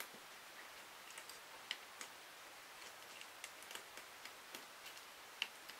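Faint, irregular small metallic clicks of an Allen key working the cylinder head screws of a YS F-120 model glow engine, a click every second or so, one a little louder near the end.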